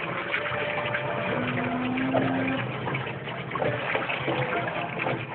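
Motor oil pouring in a steady stream during an oil change, with a short steady hum about one and a half seconds in.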